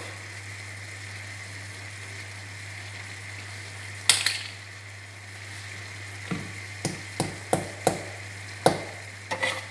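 Food sizzling steadily in a frying pan on the heat, with one sharp click about four seconds in and a run of sharp clicks and taps in the last three seconds, as a knife is worked at a container's lid to open it.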